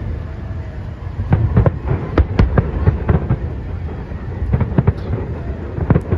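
Aerial firework shells of a large display bursting in quick succession: many sharp bangs at irregular spacing, several a second, over a steady low rumble.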